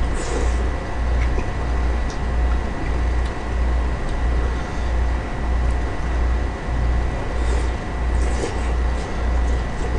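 A low, even hum throbbing a little under twice a second, with a faint steady high whine over it. A few faint mouth noises from eating noodles come at the start, and a few faint clicks come near the end.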